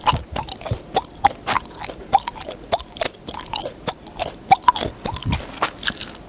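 Chewing gum being chewed close to the microphone: irregular wet smacks and clicks of the mouth and gum, several a second.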